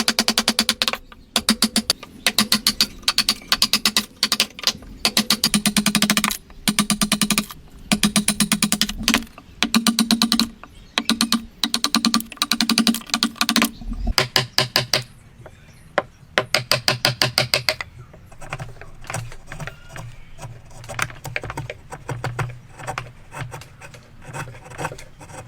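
Hand woodworking tool working wood: runs of rapid clicking strokes about a second long with short pauses, changing after about 14 seconds to a quieter, finer scraping.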